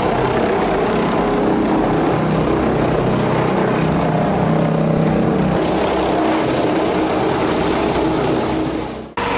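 A large engine running steadily under load. About nine seconds in it cuts off abruptly and a different, higher-pitched engine takes over.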